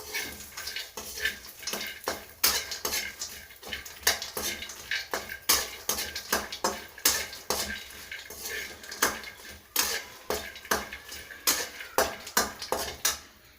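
A spatula clinking and scraping against a pan, several sharp knocks a second, as fox nuts, almonds and raisins are stirred and roasted in ghee.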